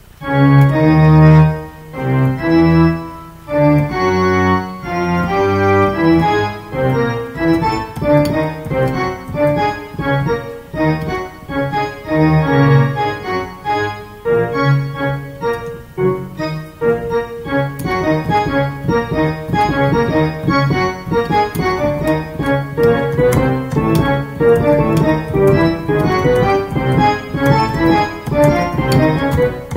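Keyboard played with a pipe-organ voice: a self-composed piece of held organ chords over a deep bass line, the notes coming faster later on.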